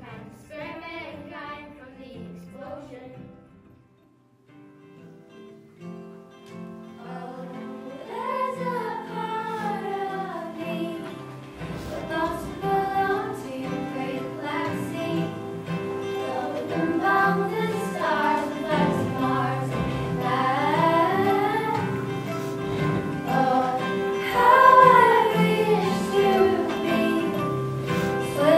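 Young girls singing a song together with instrumental accompaniment. After a brief lull about four seconds in, the accompaniment starts, the voices come in at about eight seconds, and the music grows fuller and louder from about twelve seconds.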